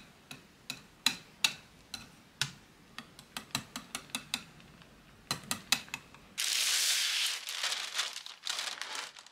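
Wire whisk clicking irregularly against a glass bowl as it stirs thick cheesecake batter. About six seconds in this gives way to baking paper rustling and crinkling as a sheet is pulled from its box.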